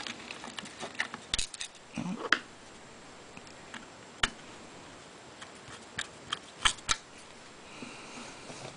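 Scattered sharp clicks and light knocks as a battery charger's circuit board and metal case are handled and pried apart during disassembly.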